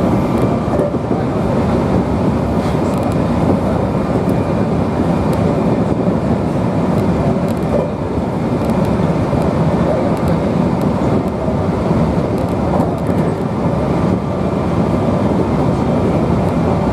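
Meitetsu electric train running at full speed, a steady loud rumble of wheels on rails and running gear heard from inside the front car.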